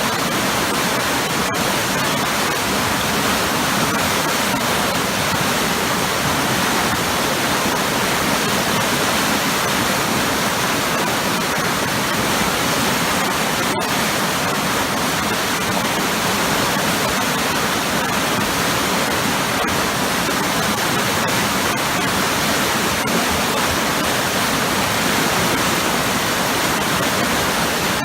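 Waterfall pouring into powerful, churning eddies: a steady, unbroken rush of water.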